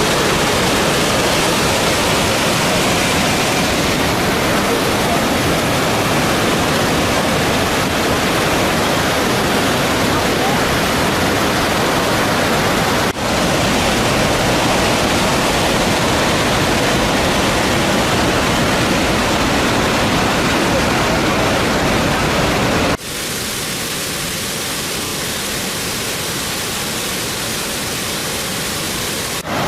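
Waterfall: a steady rush of falling water, broken by sudden cuts about 13 and 23 seconds in. After the second cut it is quieter and thinner.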